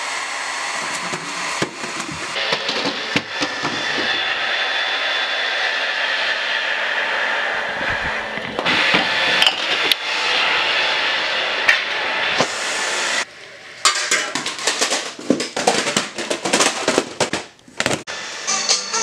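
Live sound of a homemade Rube Goldberg machine running: a steady rushing noise for about the first twelve seconds, then a quick run of clattering knocks as balls, books and other objects tumble and strike the floor.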